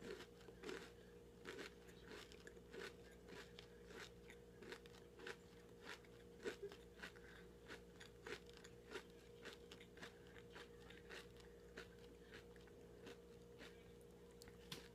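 Close-mouthed chewing of a white chocolate crunch bar: a run of crisp crunches, about two a second.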